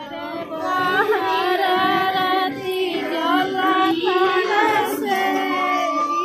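A Chhath Puja devotional song playing as background music: a female voice singing a flowing melody over instrumental accompaniment. It cuts in suddenly at the start.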